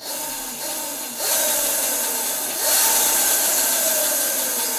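Razor MX650 electric dirt bike's brushless hub-to-chain drive running with the rear wheel off the ground: a motor whine over the chain and sprockets, rising in pitch about a second in and again near three seconds, then slowly falling. The chain runs under a newly refitted chain tensioner spring, which the owner calls perfect.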